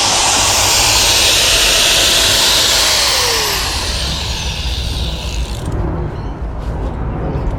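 A power tool running under load, with a loud, hissing, high-pitched grind. About two thirds of the way through the high hiss cuts out and it carries on lower and quieter.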